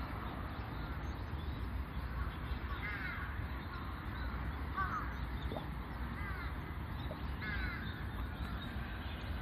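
Crows cawing several times, short harsh calls every second or two, over a steady low background rumble.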